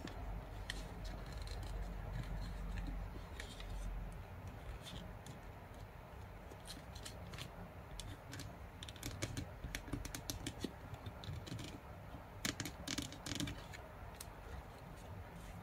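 Origami paper being folded and creased by hand: scattered crisp crackles and taps of paper rubbing and snapping into folds, with a cluster of louder ones about three quarters of the way through.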